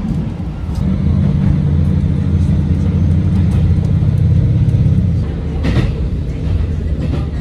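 A vehicle engine running with a steady low drone that grows louder about a second in and eases off near five seconds, with a short sharp click shortly after.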